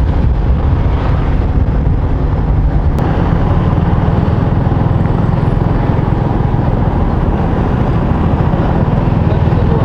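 Motorcycle engine running steadily at an even pitch while riding.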